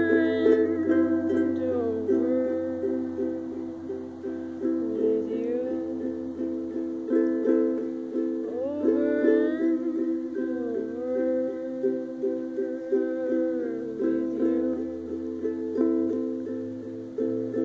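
Music: plucked-string chords repeated in a steady rhythm, with a melody line that slides between notes above them.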